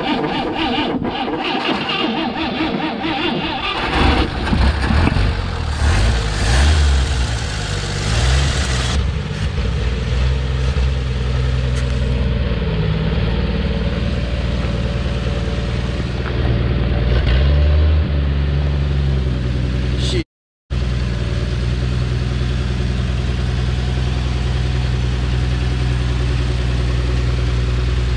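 1957 Chevrolet pickup's inline-six engine cranked on starting fluid, catching within the first few seconds and revving up, then running steadily. The sound drops out briefly about twenty seconds in.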